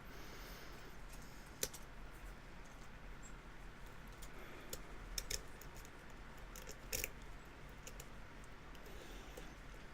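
Faint clicking and ticking of lock picks working the pins of a spool-pinned challenge padlock held in a false set, with a few sharper clicks about one and a half, five and seven seconds in.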